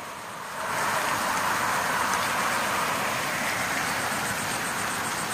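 Road traffic passing close by: the rushing noise of a vehicle on the road swells about a second in, then slowly fades.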